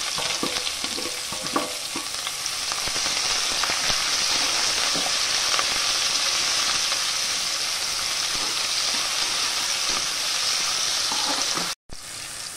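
Sliced onions sizzling in hot oil in an aluminium pressure cooker, stirred with a steel spatula. Scattered scrapes and knocks against the pan come in the first couple of seconds, then a steady sizzle. The sound cuts out for an instant near the end.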